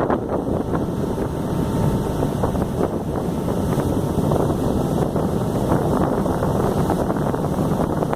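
Harbour ferry under way: a steady noise of wind buffeting the microphone over the ferry's running engine and water.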